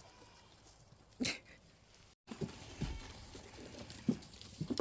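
Goats moving about in a pen: scattered soft hoof knocks and rustling, with a short noisy burst about a second in.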